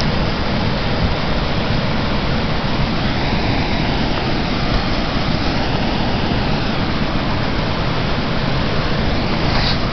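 Potomac River water pouring over the crest of Dam 5 and churning below it: a steady rush of falling water.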